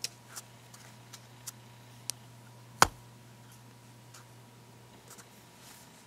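Knuckles knocking on a deck of oracle cards, a series of irregular sharp knocks with the loudest about three seconds in, then a few soft taps, over a faint low hum. The knocking is a ritual to cleanse the deck of energy left over from past readings.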